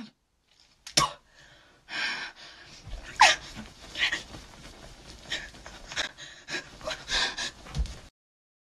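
A woman's harsh, panting breaths and gasps in frustration as she thrashes about, with a sharp click about a second in and a few dull thumps. It cuts off abruptly near the end.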